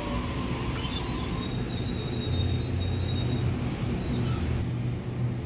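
Double-deck electric suburban train moving along the platform: a steady rumble of wheels on rail, with a faint high wheel squeal in the middle.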